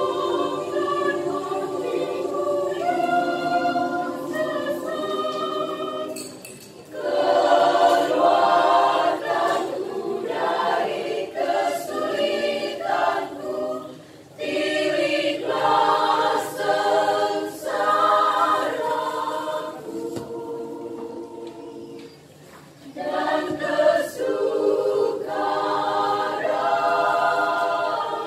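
Women's choir singing in harmony, in long held phrases broken by brief pauses about every seven or eight seconds; the opening phrase is softer, and the later phrases are fuller and louder.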